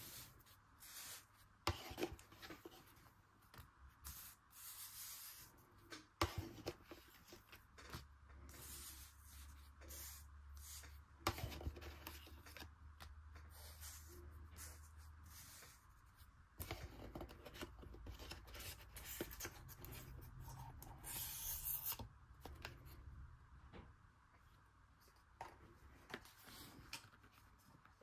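Faint rustling and rubbing of cardboard packaging and trading cards being handled by hand on a playmat, with scattered light taps and clicks.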